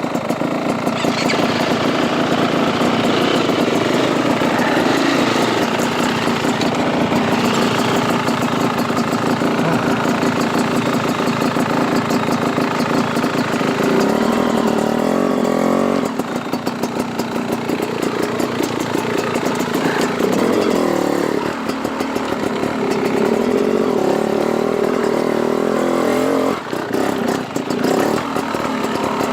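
Dirt bike engine running at low revs under a rising and falling throttle, dipping briefly about halfway through and again near the end.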